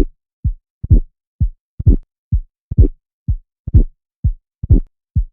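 Recorded heart sounds of mitral valve prolapse, beating steadily about once a second: each beat has a sharp mid-systolic click followed by a systolic crescendo murmur that rises toward the second heart sound.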